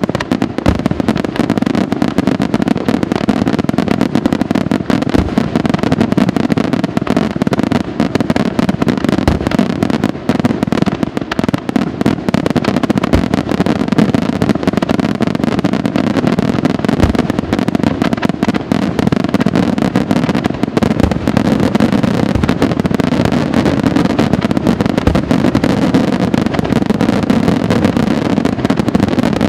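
Aerial firework shells bursting in a dense, unbroken barrage of rapid bangs.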